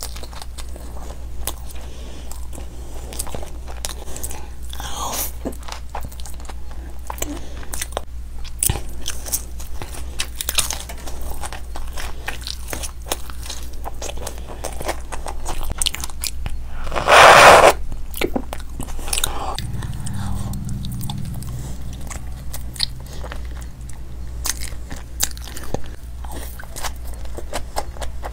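Close-miked mouth sounds of a person eating by hand: wet chewing, crunching and lip smacks on samosa chaat and crisp fried pakoras, with many small sharp clicks. About 17 seconds in, one much louder noisy burst lasting about a second stands out.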